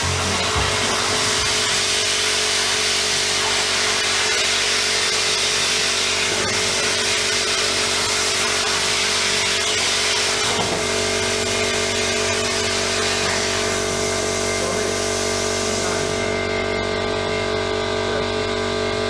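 Homemade CNC plasma cutter running: a steady loud hiss over a steady mechanical hum. About 16 s in the highest part of the hiss drops away while the hum continues.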